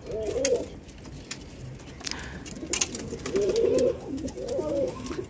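Domestic pigeons cooing: a short coo right at the start and a longer run of cooing in the second half, with a few light clicks in between.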